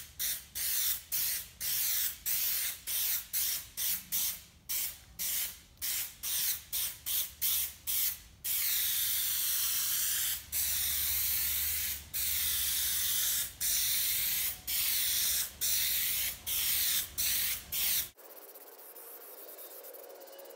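Aerosol can of spray contact adhesive hissing in many short squirts, about two a second, then in longer sprays of one to two seconds with brief breaks, stopping about eighteen seconds in.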